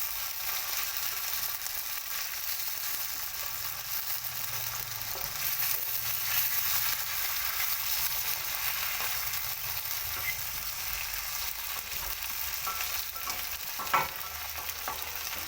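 Chicken with onion and sliced potato sizzling in hot oil in a kadhai, stirred with a steady high hiss, and one sharp knock near the end.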